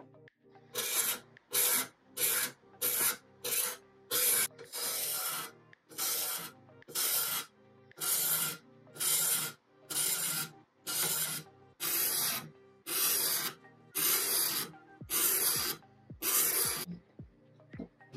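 Hand sanding of the wooden leg of an old radio cabinet: quick back-and-forth rubbing strokes, about one and a half a second, starting about a second in and stopping shortly before the end.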